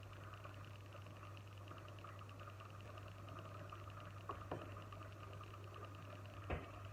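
Faint kitchen cooking sounds: a steady low hum under a fast, light crackle. Two small clicks come close together about four seconds in, and a slightly louder one near the end.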